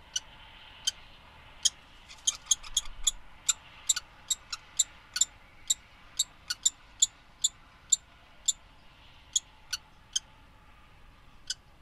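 Kestrels at a nest calling: an irregular series of short, sharp, high-pitched notes, two or three a second at their thickest from about two seconds in to about nine seconds, with single notes near the start and near the end.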